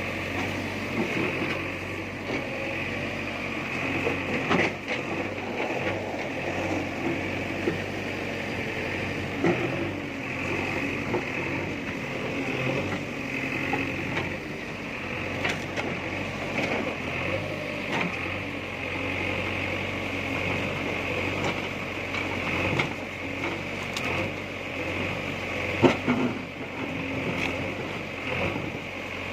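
JCB backhoe loader's diesel engine running steadily under work, with a sharp knock every few seconds.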